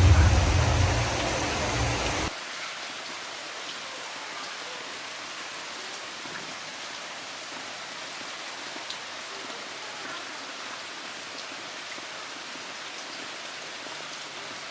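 Steady heavy rain falling, an even hiss without pause. For the first two seconds a louder low rumble sits under it, then cuts off abruptly.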